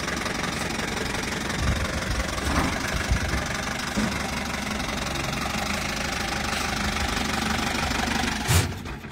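Modified open jeep's engine running as it is driven slowly up onto a truck bed, with a few low knocks along the way. Near the end there is a short loud thump, then the engine stops.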